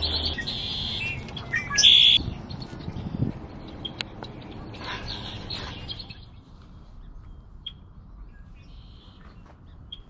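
Red-winged blackbird calling and singing: several bright calls in the first two seconds, the loudest and harshest about two seconds in, another near five seconds, then only faint scattered chips.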